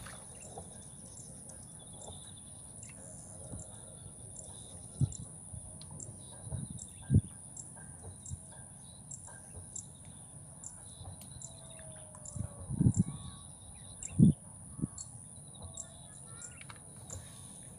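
Quiet outdoor ambience: a steady high hiss with faint bird chirps. It is broken by a few dull handling thumps, the loudest about seven and fourteen seconds in.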